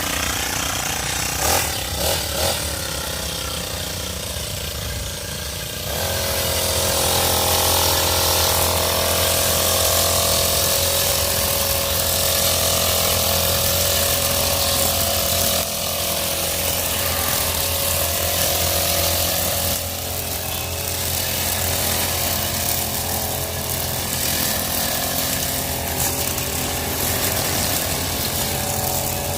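Krisbow brush cutter's small engine running at high speed with a nylon trimmer line spinning and cutting grass. It speeds up and gets louder about six seconds in, and eases off briefly a couple of times later.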